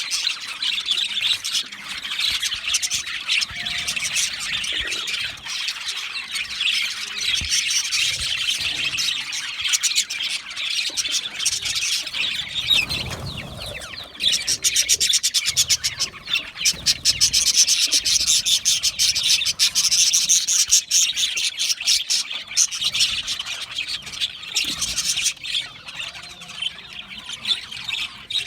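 A flock of budgerigars chirping, chattering and squawking all at once, a dense unbroken high-pitched chatter that grows louder about halfway through.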